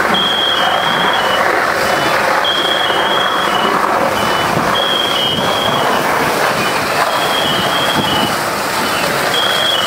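A high electronic alarm beeping in a repeating pattern of two pitches, about every two and a half seconds, over the steady running noise of fire engines pumping water to hose lines.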